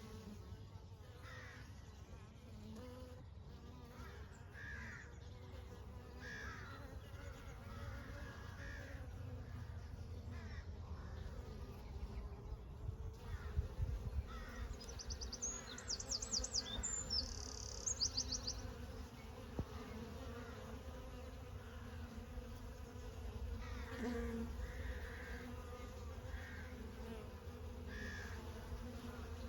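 Honey bees buzzing in a steady, continuous drone, with birds calling now and then over it and a couple of quick high chirping trills about halfway through.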